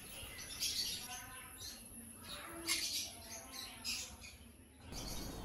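Pineapple conures (a colour mutation of the green-cheeked conure) giving a few short, faint chirps and squawks.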